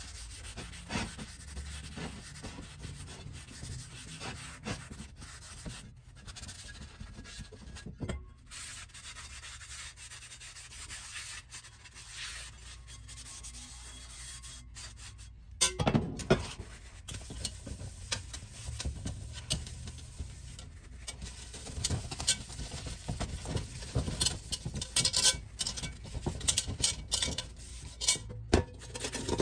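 Paper towel rubbing over cast iron, a steady scratchy wiping of a Dutch oven's lid and then its pot as they are wiped down for seasoning. A sharp clunk of cast iron comes about halfway through, and the rubbing gets louder and busier after it.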